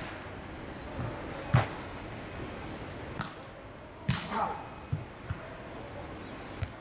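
A football being kicked and bouncing back and forth in a foot tennis rally: a series of separate dull thumps, about seven of them, the loudest at the very start and about a second and a half in.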